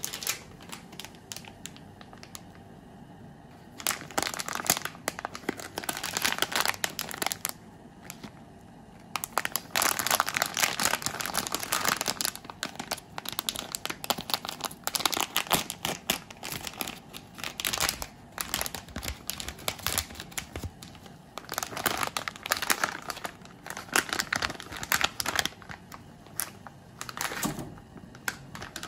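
Plastic packet of dried rice noodles crinkling in irregular bursts as hands open it and tip the noodles out. The crinkling starts about four seconds in and pauses briefly around the eighth second.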